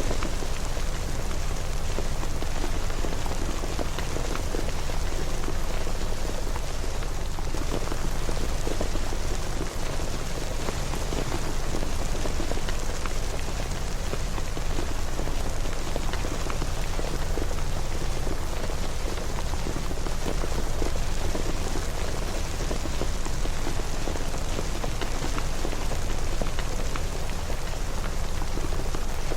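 Steady rain falling: a constant hiss with a low rumble beneath and single drops ticking through it.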